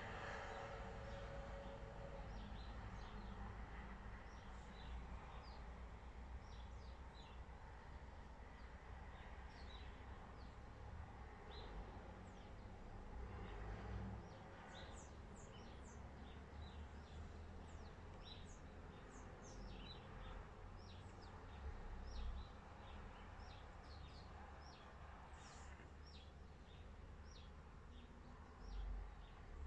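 Birds chirping faintly: many short, irregular chirps, over a low steady hum.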